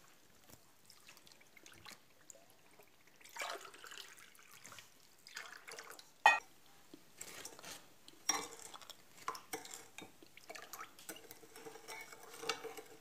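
Water poured into a glass bowl of granulated sugar, with a sharp clink about six seconds in. Then a metal spoon stirs and scrapes against the glass bowl as the sugar dissolves into syrup.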